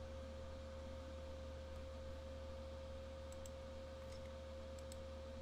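Low, steady electrical hum with one constant tone held through it, the background noise of the recording setup. A few faint computer mouse clicks come in the second half.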